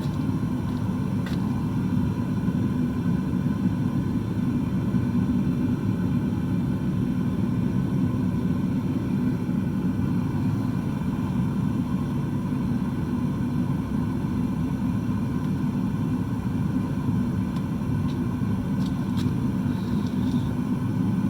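Homemade metal-melting furnace's burner running with a steady, low noise as the flame whips around the crucible inside.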